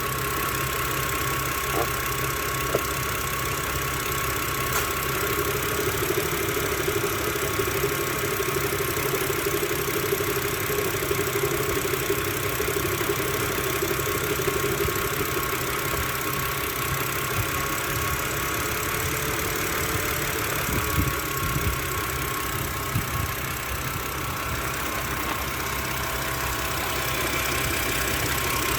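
BMW N52B25 straight-six engine idling steadily, with a ticking that the owner puts down to worn hydraulic lifters, or at times to an exhaust or intake valve.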